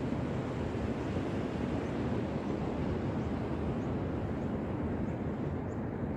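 Steady wash of ocean surf on a beach, with wind rumbling on the microphone.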